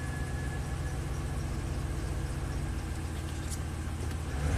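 2013 Chevy Silverado 2500HD engine idling steadily at about 950 rpm, cold, heard from inside the cab. The engine has started normally with its repaired camshaft position sensor wiring, and the sensor signal is now counting.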